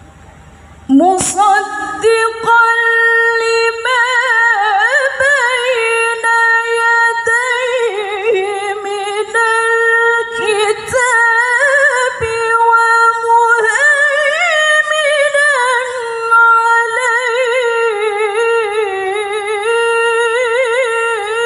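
A woman's voice, unaccompanied and amplified over a sound system, chanting a Qur'anic recitation (tilawah) in long held notes with wavering, melismatic ornaments, starting about a second in.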